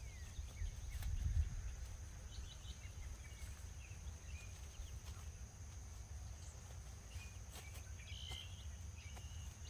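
Outdoor summer ambience: a steady high insect drone, a few short bird chirps and a low steady rumble, with occasional faint scrapes and clicks of a hand trowel digging soil.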